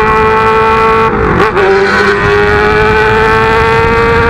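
Yamaha XJ6 inline-four engine running loud through a straight-through open exhaust pipe while being ridden. Its note dips briefly about a second in, then climbs slowly as the bike gathers speed.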